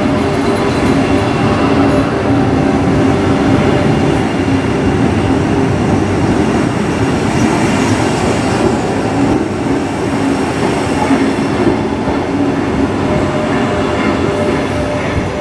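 Sydney Trains Tangara electric suburban train moving past along the platform: a steady rumble of wheels on the rails with a low motor hum, easing off a little near the end as the last carriage goes by.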